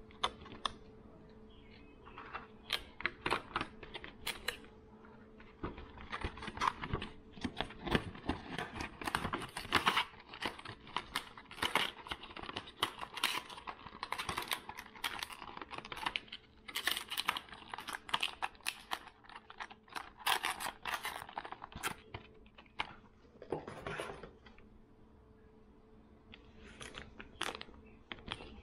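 Plastic lure packaging handled in the hands: a clear plastic tray and plastic bags of soft-plastic baits crinkling and clicking in quick, irregular bursts, with a quieter pause shortly before the end. A faint steady hum runs underneath.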